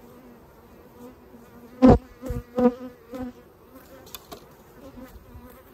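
Honey bees buzzing around an open hive in a steady hum, with a few short, much louder buzzes about two to three seconds in.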